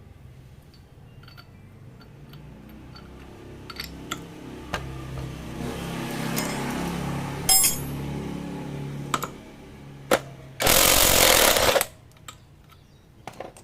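A power tool working on the clutch: a low mechanical hum builds from about four seconds in, with a few sharp clicks, then a loud harsh burst about a second long near the end.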